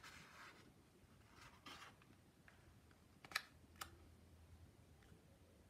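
Faint rustle of a paper picture-book page being turned, then two sharp clicks about half a second apart.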